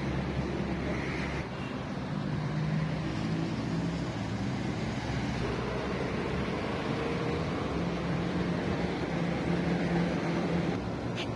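Steady road traffic noise, with the low hum of a running motor vehicle engine.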